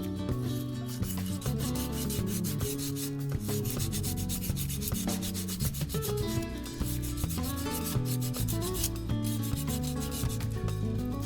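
Sandpaper rubbing back and forth in quick repeated strokes on a drum brake shoe's friction lining, roughening its glazed, shiny surface to cure brake squeal. Guitar music plays underneath.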